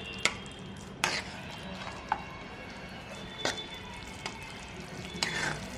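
A metal spoon stirring a thick creamy sauce in a nonstick frying pan, with a few sharp clicks of the spoon against the pan.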